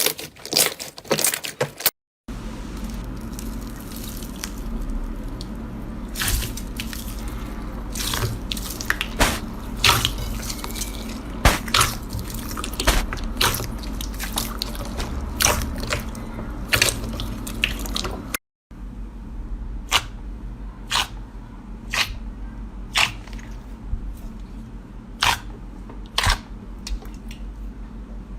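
Slime being squeezed and poked by hand, making sharp wet clicks and pops. There are two abrupt cuts between clips. In the last clip the pops come singly, roughly one a second, and a steady low hum runs under the middle clip.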